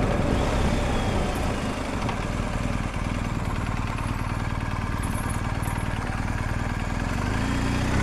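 BMW R 1250 GS Adventure's boxer-twin engine running steadily at low revs.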